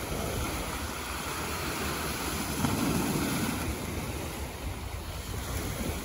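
Small waves breaking and washing against a rock revetment, swelling to a louder wash about halfway through, with wind buffeting the microphone.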